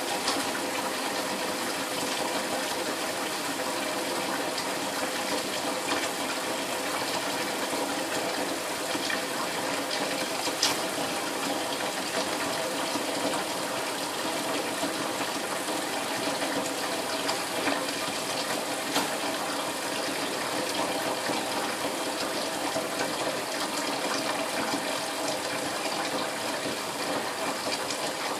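Thin stream of tap water running steadily into a stainless steel sink, with a few faint clicks over it.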